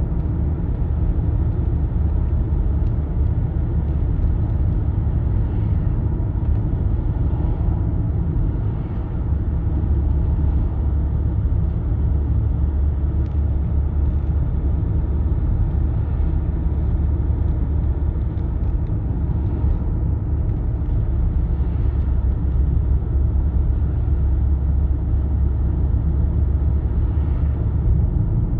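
Audi A6 C5 Allroad's 2.5 TDI V6 diesel (AKE) with tiptronic automatic, heard from inside the cabin cruising gently at about 50 km/h and 1,400 rpm: a steady, low-pitched engine and road drone.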